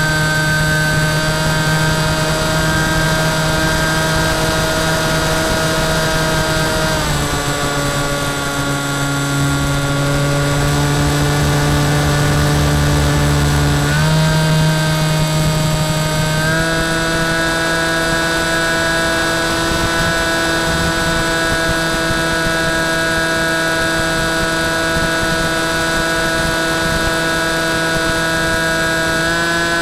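Phantom FX61 flying wing's electric motor and pusher propeller running steadily, heard from the camera on board the plane. The pitch drops as the throttle is eased about a quarter of the way in, then climbs back up about halfway through and holds steady.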